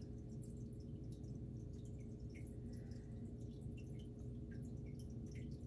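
Quiet room tone: a steady low hum with faint, scattered small ticks.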